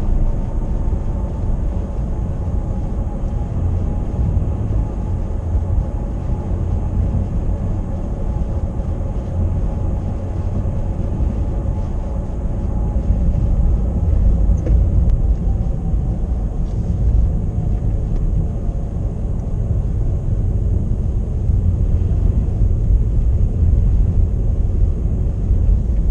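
Car driving: a steady low rumble of engine and tyres on the road, with a faint whine above it.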